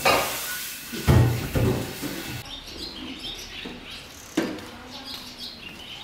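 A few knocks and clatter of pots and dishes, then small birds chirping in quick, repeated short notes, with one sharp knock partway through.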